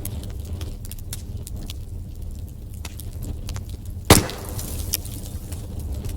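Wood fire in a fireplace crackling over a low steady rumble of flames, with many small snaps and one loud pop about four seconds in.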